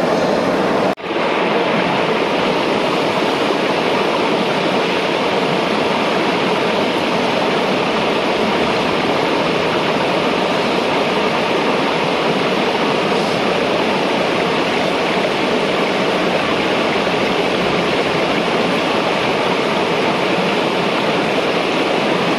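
Waterfall rushing with a steady roar of falling water, broken for an instant about a second in.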